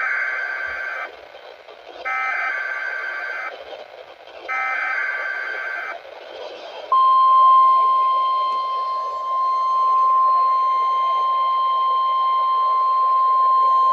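NOAA Weather Radio weekly test signal through a weather radio's speaker: three short SAME digital header bursts about two seconds apart, then, about seven seconds in, the steady 1050 Hz National Weather Service warning alarm tone starts and holds, over radio static.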